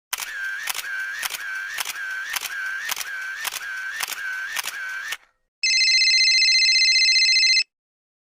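A sound-effect clip of evenly spaced sharp clicks, a little under two a second, for about five seconds, followed after a short gap by a steady buzzing electronic tone held for about two seconds.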